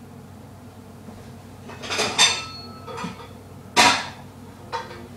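Metal pots and pans clanking as a pan is got out from among the others: a handful of separate knocks with a brief metallic ring, the loudest about four seconds in.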